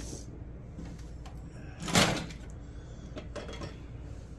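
Handling noise from a Bose Acoustimass subwoofer module being worked on: a few light clicks and one short, loud scraping clunk about two seconds in.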